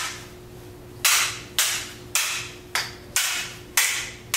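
Wooden sticks used as stage swords clacking together in a mock sword fight: a run of about seven sharp cracks, roughly two a second, each with a short ringing tail, starting about a second in.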